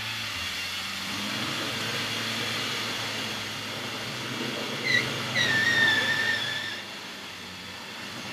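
Land Rover Defender 90's engine running at low speed as it crawls through mud. About five seconds in there is a short high squeal, then a longer wavering one lasting about a second and a half.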